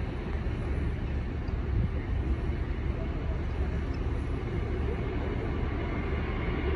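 Steady, low rumble of a twin-engine jet airliner's engines as it climbs out after takeoff.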